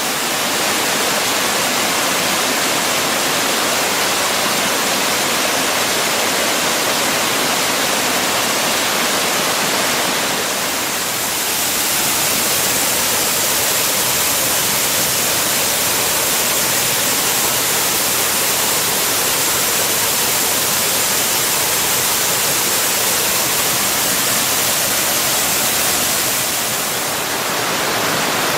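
Waterfall with a steady, loud rush of falling water, dipping slightly twice.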